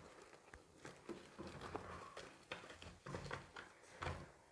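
Faint crinkling and rustling of plastic cling film being stretched over a plastic bowl of dough, with scattered small clicks and a couple of soft knocks from the bowl being handled near the end.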